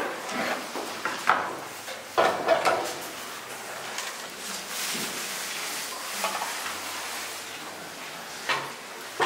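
Irregular light knocks and clatter of metal pans and bread being handled on a two-pan balance scale, over steady room noise.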